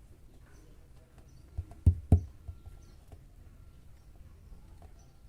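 Three quick thumps close together about two seconds in, the last two much louder, over a faint low hum.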